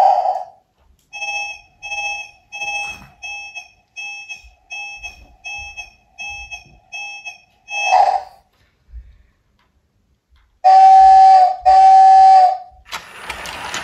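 A toy electric train's built-in sound effects while it stands at the platform: a chime, a run of short electronic beeps at about two a second for some six seconds, and another chime. Two long horn blasts follow, then its motor starts to whir as it pulls away.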